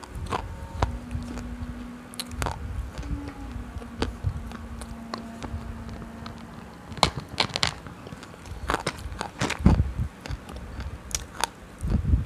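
Close-miked biting and crunching of a hard white lump: sharp snaps and crumbling crunches at irregular intervals, coming in thicker clusters in the second half.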